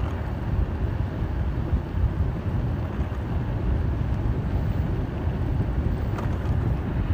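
Wind buffeting the microphone of a camera moving along a street: a steady, unevenly fluttering low rumble.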